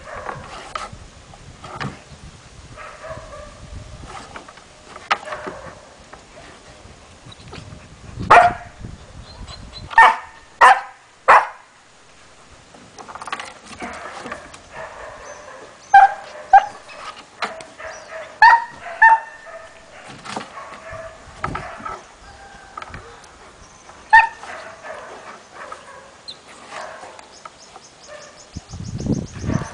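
Kuvasz dogs play-fighting, giving short, sharp yips and barks in scattered clusters, the loudest a quick run of three about ten seconds in, with softer whining between.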